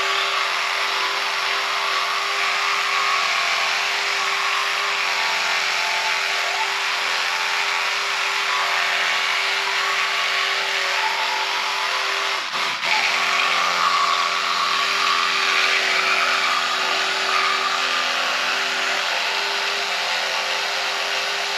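Oral-B Smart 5000 electric toothbrush running with a steady motor hum and a shifting hiss. The motor briefly stutters about halfway through, the kind of pulse its 30-second quadrant timer gives.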